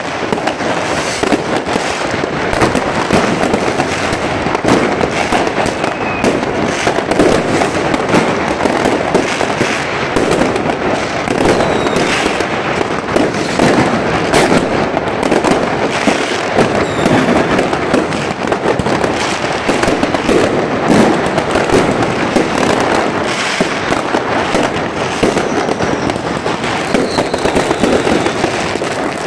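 Dense barrage of fireworks: rockets bursting and firecrackers banging and crackling without pause, with a few short whistles of rockets heard through it.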